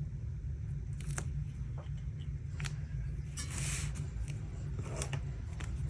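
Light scratching and a few small clicks of a gel pen on watercolour paper while signing, the clearest stroke about three and a half seconds in, over a steady low background rumble.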